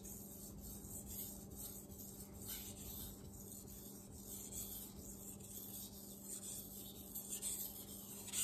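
A Miyabi SG2-steel kiritsuki edge is stroked back and forth with light pressure on a wet 1000-grit NanoHone water stone, making a faint, repeated scraping hiss. The strokes refine the burr and flip it from side to side.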